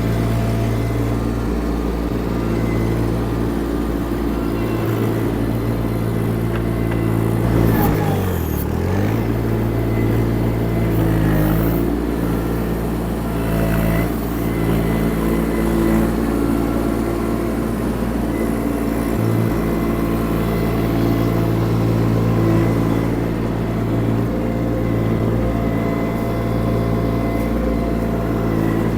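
Diesel engine of a Baumalight TRL620D mini skid steer running steadily at working throttle as the machine is operated, its pitch dipping sharply and recovering about eight seconds in, and briefly again about four seconds later.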